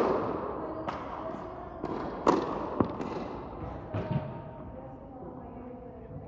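Tennis balls being struck and bouncing in a large echoing indoor court: about six sharp pops over the first four seconds, each with a short ringing tail, over a low murmur of voices.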